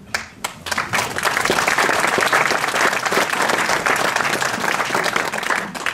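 Audience applauding: a few scattered claps that quickly build into steady applause, then die away near the end.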